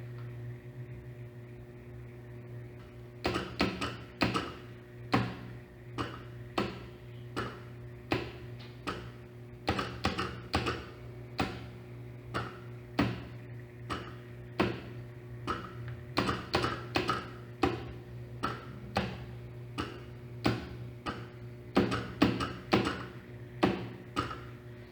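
Homemade telegraph sending Morse code: the key and electromagnet armature click in irregular runs of sharp clicks, starting about three seconds in, over a steady low hum.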